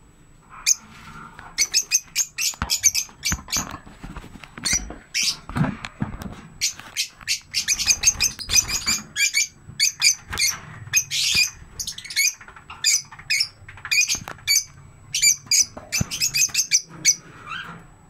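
Lovebirds chirping: a rapid, continuous run of short, high-pitched chirps and squawks.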